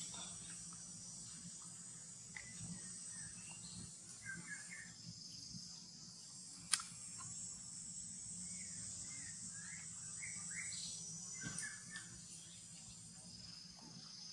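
Outdoor insect chorus, a steady high-pitched shrill drone, with scattered short chirps and one sharp click about seven seconds in.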